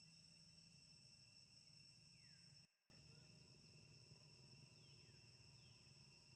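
Faint, steady insect drone held at a few high pitches, with a few faint falling whistles. It drops out briefly just under three seconds in.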